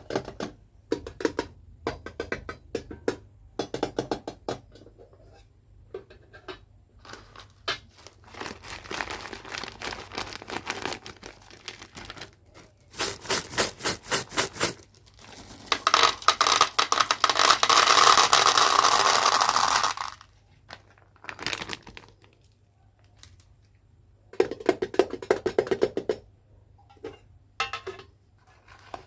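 Candy packaging being handled: bursts of crinkling and small clicks and rattles, with a few seconds of continuous loud rustling about two-thirds of the way through.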